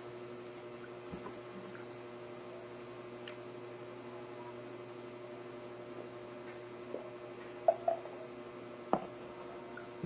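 Quiet eating and drinking sounds: chewing, then a drink from a glass, over a steady electrical hum. A few short knocks come near the end.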